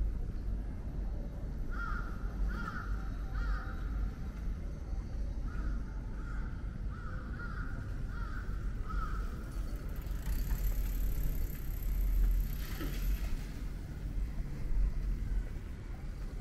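A crow cawing in a series: three caws, a short pause, then about six more. A steady low street rumble lies underneath, and a faint high whine follows the caws for a few seconds.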